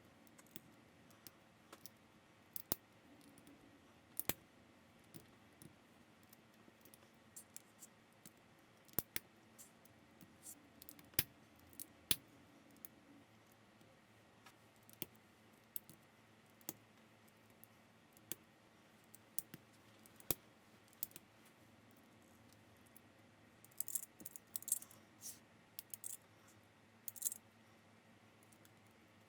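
Plastic building bricks clicking as they are pressed together and handled: faint single sharp clicks every second or so, with a quick run of light rattling clicks near the end.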